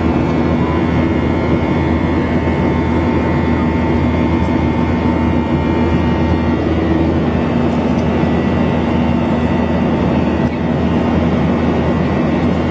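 Steady in-flight cabin drone of a Boeing 737-800, its CFM56 engines and the airflow making an even roar with a faint steady hum; part of the hum drops away about halfway through.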